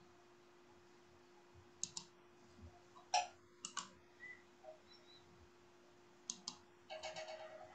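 A few sharp, short clicks, mostly in pairs, over a faint steady hum; near the end a brief pitched sound begins.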